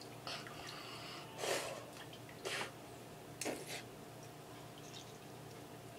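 A person breathing out hard in three short, sharp breaths about a second apart, over a faint steady fan hum.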